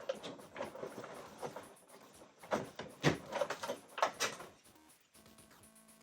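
Hard plastic figure parts and small tools being handled on a table: irregular clicks and knocks, several sharp ones in the middle. Faint background music comes in near the end.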